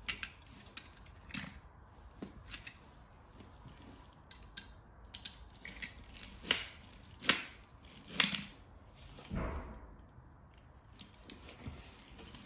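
Die-cast Hot Wheels toy cars clicking and clacking against one another as they are picked up, pushed and set down. A string of small clicks, with three louder clacks between about six and eight seconds in and a duller knock just after.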